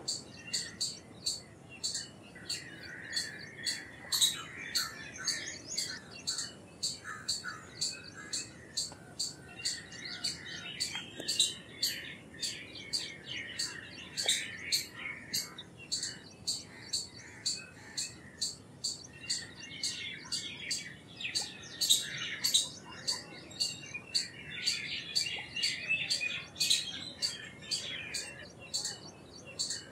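Indian palm squirrel calling: a steady run of sharp, high chirps, about three a second, with a softer twittering chatter mixed in for stretches.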